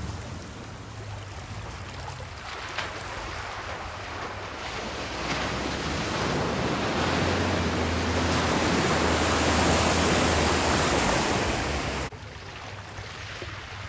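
A 4x4 driving through a deep, muddy water crossing: water sloshing and splashing over the engine running underneath, growing louder as it comes closer. The sound drops away abruptly about twelve seconds in, leaving a quieter wash of water.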